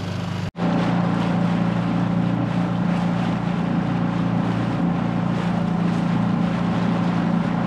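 Small tiller outboard motor running steadily at speed, pushing an inflatable dinghy across open water, a constant hum with water and wind noise over it. The sound drops out for an instant about half a second in, then carries on unchanged.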